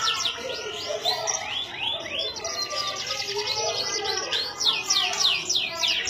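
Domestic canary singing in its cage: quick strings of high notes that sweep downward, run together with rapid trills.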